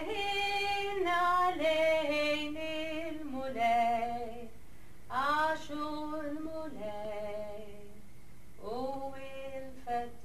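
A woman singing unaccompanied. She holds long, wavering notes in several phrases, with a short break about halfway through.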